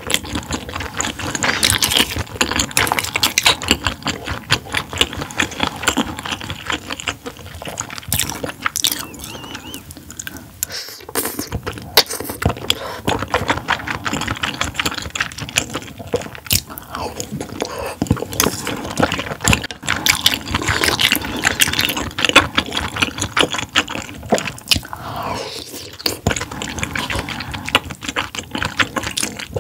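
A person eating close to the microphone: chewing and wet mouth sounds with many small clicks, briefly quieter about ten seconds in.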